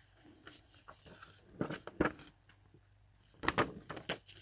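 Paper rustling and crackling as loose printed sheets and card are shuffled and handled by hand, in two short spells, the second a little after three seconds in.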